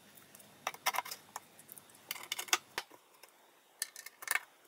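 Small plastic fittings being handled and pressed into a white particleboard drawer panel, giving light clicks and taps in three short clusters.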